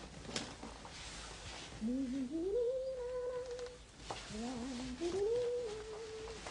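Two long, wavering moans, each sliding up in pitch and then held for a second or more, the first starting about two seconds in and the second right after it. A short click comes just before each moan.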